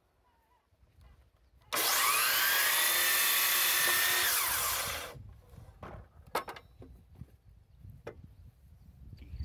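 Hercules 12-inch sliding miter saw starting up with a rising whine, then its blade cutting down into a 6x6 wooden timber; the saw stops about five seconds in. A few sharp clicks follow.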